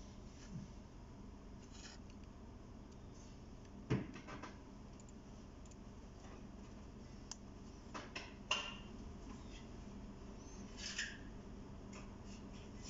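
Faint handling noise from a Seiko 5 automatic wristwatch being held and its crown worked by hand: a few scattered small clicks and rubs, the sharpest knock about four seconds in and a short cluster of clicks near the middle, over a low steady hum.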